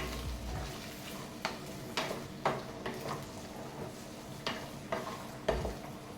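Vegetables (potato, cauliflower, carrot, French beans) frying in oil in a kadai and being stirred: a faint steady sizzle with short scrapes or knocks of the stirring utensil against the pan, about every half second in two runs of three.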